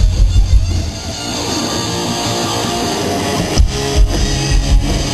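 Live hard rock band playing with distorted electric guitar, bass and drums. About a second in the drum beat stops and the guitar carries on alone, held and even; after about two and a half seconds the full band comes back in on a hard hit.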